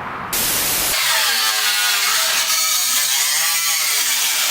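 Handheld power tool cutting into the car's body panel, starting about a third of a second in, running with a wavering pitch and stopping near the end.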